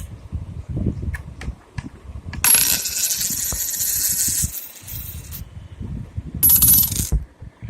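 A metal coin ringing with a high, steady tone twice: one long ring of about three seconds starting a couple of seconds in, then a shorter ring near the end. Small clicks and a low rumble sit underneath.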